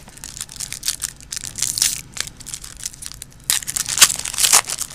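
Silver foil trading-card pack being crinkled and torn open by hand: irregular crackling and rustling, loudest about three and a half seconds in.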